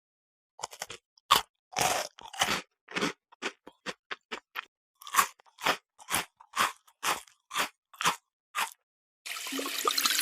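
Someone chewing crunchy food: a run of short, crisp crunches, about two a second. Near the end a steady rushing noise starts.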